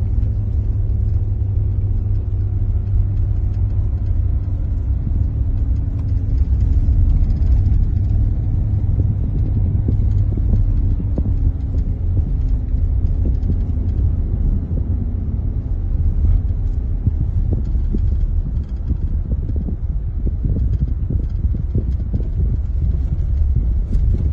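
Steady low rumble of road and engine noise inside a car's cabin as it drives on an unpaved mountain road. A faint engine tone drifts slightly in pitch through the first half, and short knocks from the rough surface come more often in the second half.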